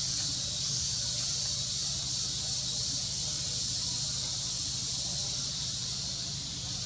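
Steady outdoor ambience: a constant high-pitched insect drone over a low rumble, with no distinct calls or impacts.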